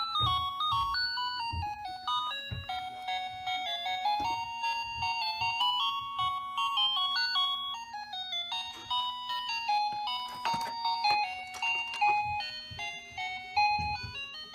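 Electronic toy tune, a simple melody of clean beeping notes stepping up and down, played by a child's toy car-alarm remote, with scattered low knocks underneath.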